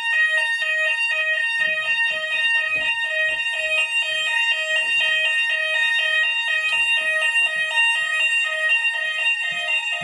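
Hochiki addressable fire alarm sounders in several rooms going off together during a weekly system test. A steady continuous tone sounds alongside a two-tone warble that alternates about twice a second, really loud, with the sounder volume set higher than the owner wants.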